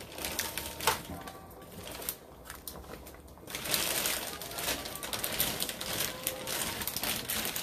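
Hard cooked crab-leg shells clicking and knocking against each other as they are laid into a pot. From about three and a half seconds in, a plastic bag crinkles and rustles for several seconds.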